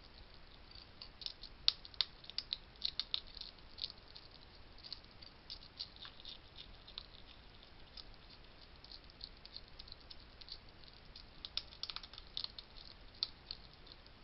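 Hedgehogs eating dry food, with rapid, irregular crunching and clicking that comes in a busy burst about a second in and again near the end.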